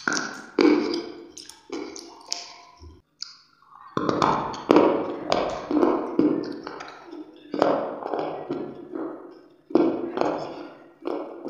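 Close-miked crunching and chewing of hard grey clay chunks: a run of sharp crunches roughly every half second to a second, each dying away quickly, with a short pause about three seconds in.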